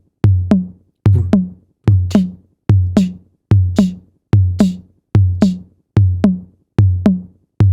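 Drum-machine heartbeat: a steady kick-drum thump about 72 times a minute, with a bright hissing "ksch" layered on several of the beats. The beat stands in for the heart sounds, the brighter, shorter "ksch" being the second heart sound, made by the aortic and pulmonary valves closing.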